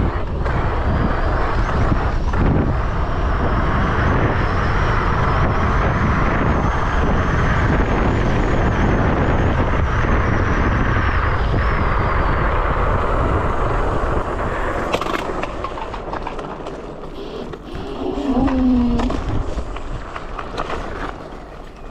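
Wind buffeting the microphone and ride noise from an electric scooter under way, with a faint high motor whine that rises and falls in the first half. The noise eases about two-thirds of the way through, and a brief low pitched sound comes near the end.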